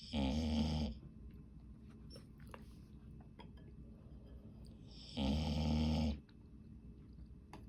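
Dog snoring loudly: two long snores about five seconds apart, each lasting about a second.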